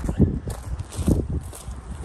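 Footsteps on grass and knocks from the camera being handled, two heavier thuds about a second apart, over wind rumbling on the microphone.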